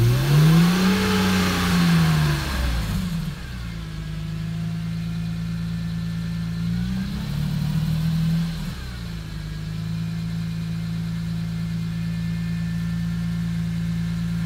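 Cold classic BMW engine being revved: the revs rise and fall back over the first couple of seconds, settle to a steady idle, rise again in a shorter blip about seven seconds in, then drop back to idle.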